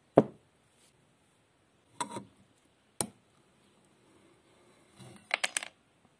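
A wooden block and a restored old nail puller handled on a workbench: a heavy knock at the start, two sharper knocks about two and three seconds in, then a quick run of clicks near the end as the claw levers a nail out of the wood.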